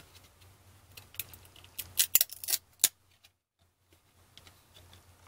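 Glossy trading cards handled by hand: a few sharp clicks and flicks as cards are slid off the stack and snapped against each other, bunched together about two to three seconds in, with softer ticks around them.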